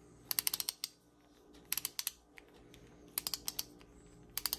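Ratchet mechanism of a NoCry stubby ratcheting screwdriver clicking as the handle is turned back and forth, in four quick runs of about five or six clicks each.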